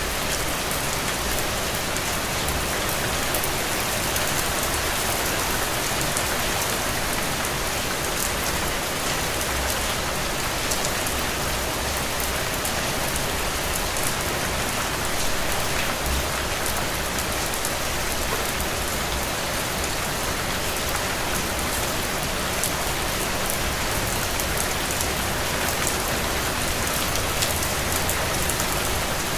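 Heavy, steady rain falling on the ground, a dense even hiss with fine patter of individual drops.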